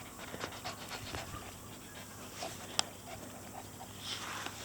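Akita puppy panting, with scattered small clicks and taps and one sharper click a little before three seconds in.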